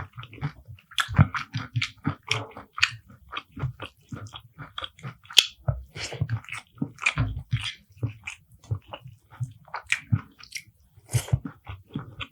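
Close-miked eating sounds: wet chewing and biting of rice with beef curry, a stream of short irregular smacks and crunches.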